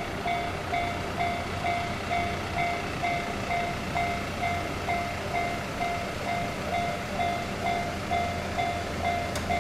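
Japanese level-crossing alarm ringing, its electronic bell repeating steadily at about one and a half strokes a second to warn of an approaching train. A low rumble grows stronger about halfway through.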